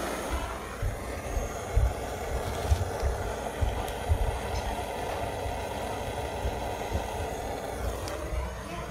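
Bison Airlighter 420's battery-driven fan blowing a steady stream of air into a burning wood fire, making a steady rushing noise with irregular low rumbles.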